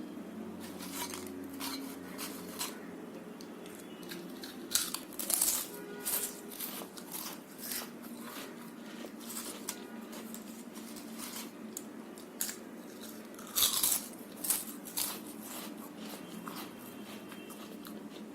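Close-miked chewing and crunching of food in the mouth, a run of crisp crunches with two louder clusters, about five seconds in and again near fourteen seconds.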